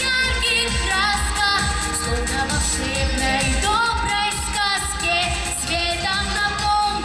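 A girl singing a pop song into a handheld microphone over a backing track, holding long notes with vibrato above a steady bass line.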